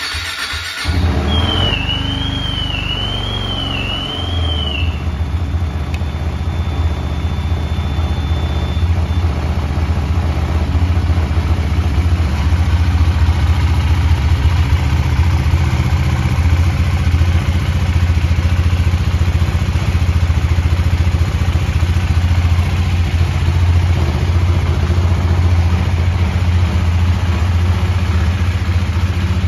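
KTM Duke 390's single-cylinder engine starting up and settling into a steady idle on its standard exhaust, a little bit quiet for a single. A faint warbling tone sounds over the first few seconds.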